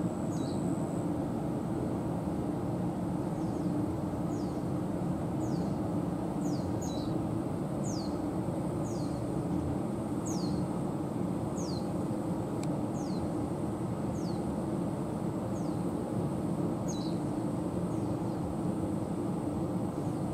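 A bird calling over and over with short, high notes that slide downward, about one a second, over a steady low rumble of city traffic.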